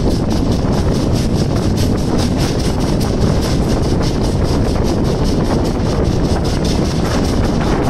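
Express train running at speed: a steady, loud rumble of wheels on rail with wind noise over it.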